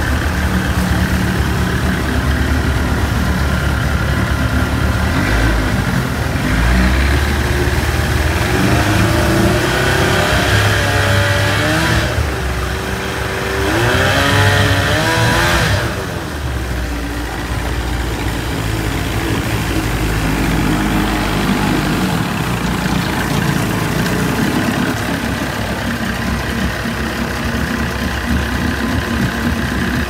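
1990s 30 hp Evinrude two-stroke outboard running with its cover on. It is revved up and back down a couple of times, then settles to a slightly quieter, steady run. It runs smoothly, with its carburetor rebuilt and the lean sneeze gone.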